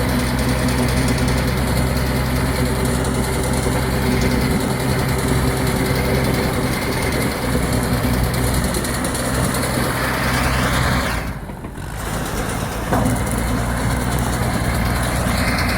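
Engine of a net-wrap round baler outfit running steadily under load as the baler works, with a brief drop about eleven seconds in before it resumes.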